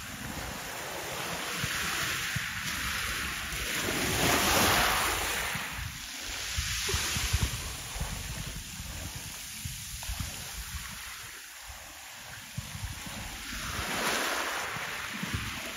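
Wind buffeting the microphone over a steady wash of sea noise. The noise swells twice, about four seconds in and again near the end.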